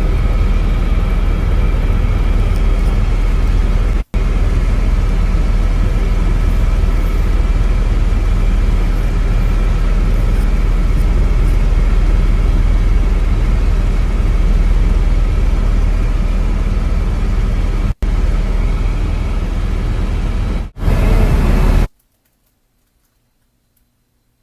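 Helicopter in flight: a steady, loud engine and rotor noise with a constant whine. It is broken by two split-second gaps and then cuts off into silence near the end.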